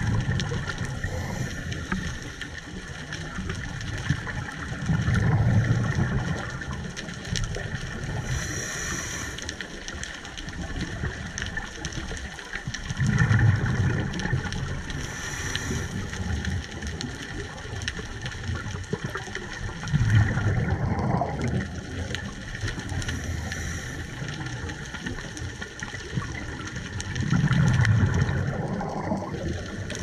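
A scuba diver breathing underwater, heard through the camera's housing: a low rush of exhaled bubbles about every seven seconds, each followed a couple of seconds later by a short hiss of the regulator on the in-breath, over a steady faint hum.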